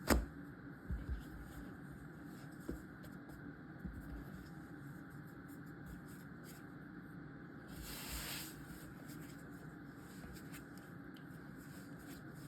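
Quiet handling of sourdough dough being shaped by hand on a counter: a sharp knock at the start, a few soft thuds and light ticks, and a brief hiss about eight seconds in, over a steady low room hum.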